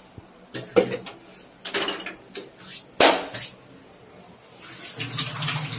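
Kitchen utensils knocking and clattering on the stove counter in a few separate sharp knocks, the loudest about three seconds in. Near the end, a tap starts running.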